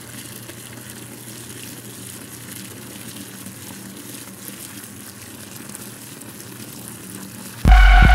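A steady, even hiss with a faint low hum underneath, then about seven and a half seconds in loud electronic music cuts in suddenly with a heavy, throbbing bass and held tones.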